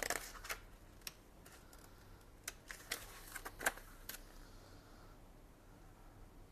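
Paper crackling and rustling as a folded printed manual is handled: a run of short, light crackles over the first four seconds, then only faint rustles.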